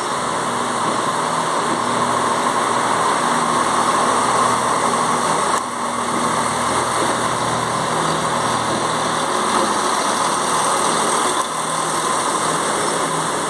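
Class 168 diesel multiple unit's underfloor diesel engines running steadily with a hissing whine, briefly dipping twice.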